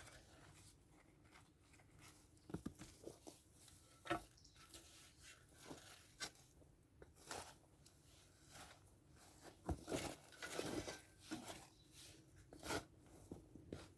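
Faint, irregular crunching and scraping, typical of soil being dug and potatoes being pulled out and handled.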